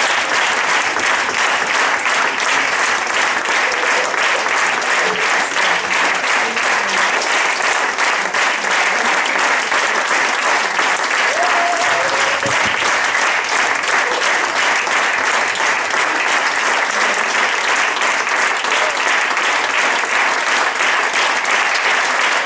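Audience applauding steadily in dense, even clapping, with a few voices calling out now and then.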